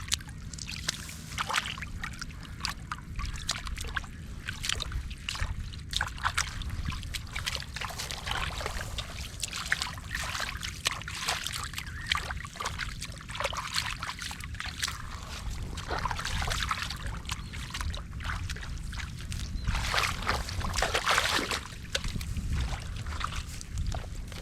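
Muddy water splashing and trickling in quick, irregular splashes, with a steady low rumble underneath.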